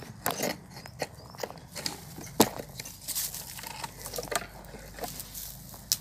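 Irregular rustling and crackling with several sharp clicks and knocks, the loudest about two and a half seconds in: handling noise of leaves, twigs and the phone being moved about.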